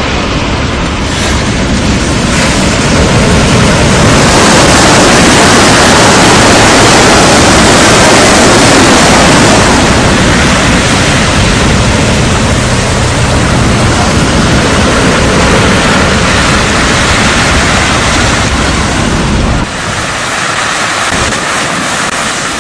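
Strong wind blowing hard across the microphone over surf, a loud steady rush of noise with deep rumbling buffets. It swells a few seconds in and drops suddenly near the end.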